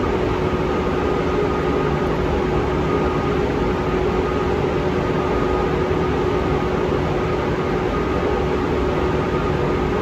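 Ventilation fan running steadily: an even rushing drone with a constant hum through it, typical of a paint booth's exhaust fan.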